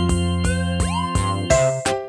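Background music: pitched keyboard-like notes over a steady beat, with a few upward-sliding notes about halfway through.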